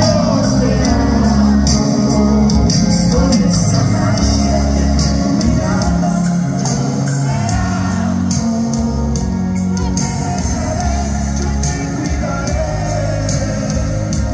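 Live band playing in a large arena, heard from the stands: a lead voice singing over bass, guitar, keyboards and a steady drum beat, with the hall's echo.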